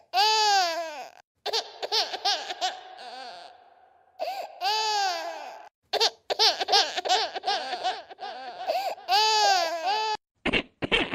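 Baby-cry sound effect played in edited variations: a long wail that rises and falls comes back about every four seconds, with short, choppy sobbing cries between. Near the end a differently filtered, chopped-up version starts.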